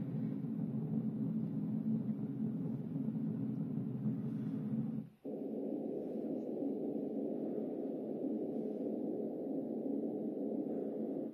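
Built-in nature-sound recordings playing through the small speaker of a dino-egg star projector. A steady low rushing sound, like wind or storm, cuts off about five seconds in, and after a brief gap a different, higher steady sound takes over.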